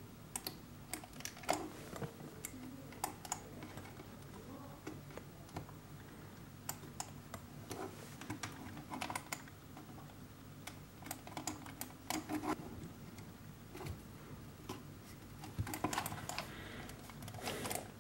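Scattered light plastic clicks and taps in small irregular groups as the small feet are pressed back onto the plastic underside of a Microsoft IntelliMouse optical mouse and the mouse is handled.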